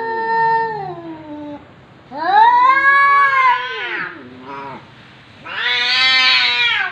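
Domestic cats caterwauling in a face-off: long wavering yowls that rise and fall in pitch, three of them with a short one between, the threatening calls of a standoff between two cats.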